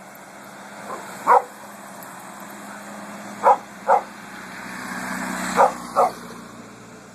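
A chihuahua barking sharply at a passing mail truck: five yaps, one and then two pairs, over the truck's engine and road noise, which swells and fades as it goes by.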